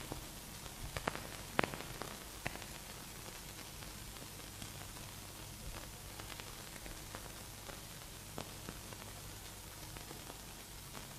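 Faint, steady hiss of an old film soundtrack with scattered clicks and crackles, most of them in the first few seconds, over a low steady hum.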